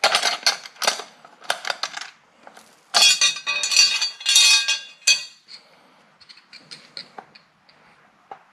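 Small metal fittings and a plastic air-filter frame clicking and clinking as they are handled and undone by hand. There are sharp clicks in the first two seconds and a louder metallic clatter from about three to five seconds in, then only a few faint taps.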